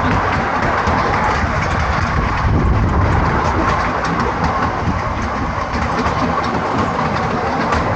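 A vehicle running steadily, with a continuous low rumble and many small rattles and clicks.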